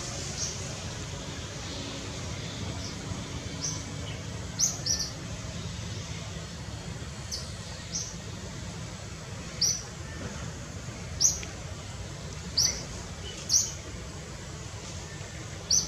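A bird giving short, sharp, high chirps, about ten of them at uneven intervals, over a steady low background rumble.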